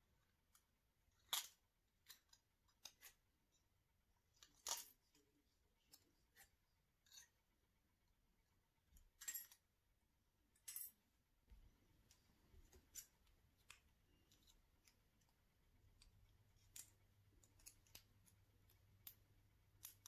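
Scissors snipping through a strip of silvery foil, a sharp snip every second or so over the first half, then fainter clicks as the small cut pieces are handled.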